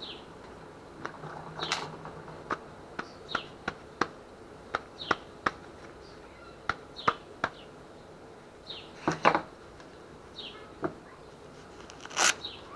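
Irregular sharp knocks and clacks of a wooden sinker mold and freshly cast lead sinkers being handled and tapped on a workbench to free the sinkers. A bird chirps briefly every second or two behind them.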